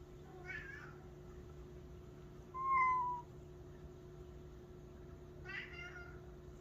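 Domestic cat meowing three times: two faint calls with a much louder, clear meow between them, about two and a half seconds in.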